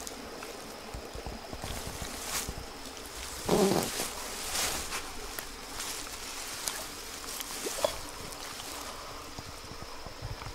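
Grass rustling and handling noise as a large catfish is gripped and moved on the grass, with scattered short rustles and one louder thud about three and a half seconds in.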